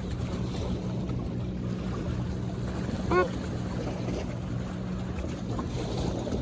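Steady low drone of a boat motor running, with wind rushing over the microphone. One short high-pitched call about three seconds in.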